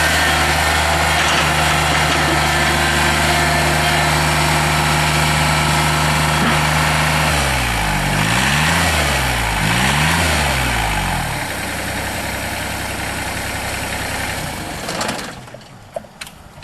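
Kubota BX22 tractor's small three-cylinder diesel engine running steadily, revved up and back down twice about halfway through, then settling to a lower idle before it cuts off near the end.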